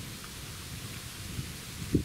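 Steady rain hiss, with irregular low thumps that grow stronger near the end.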